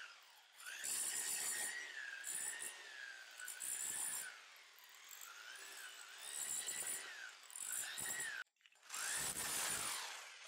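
Parkside hammer drill with a wide chisel bit, on its lowest setting, run in about six short bursts to chip parquet wood blocks loose from the floor; the motor's pitch rises and falls as the load changes.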